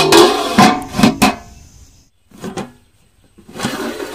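Aluminium lid clanking onto the rim of a large aluminium cooking pot, about four ringing metallic knocks in the first second and a half. Near the end, more metal clatter as the lid is shifted on the pot.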